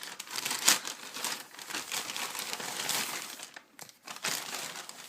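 Packaging crinkling and rustling as it is handled before being opened, an irregular crackle with a loud crackle under a second in and a brief lull near the end.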